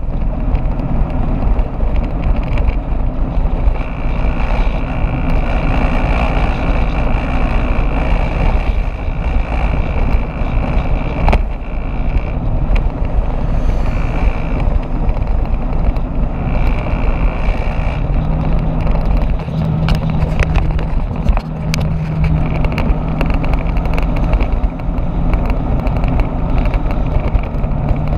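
Riding a motorbike at highway speed, heard from a camera on the bike: wind buffets the microphone over engine and road noise. A faint steady high whistle runs through much of the first half, and a steady low engine hum comes in about two thirds of the way through.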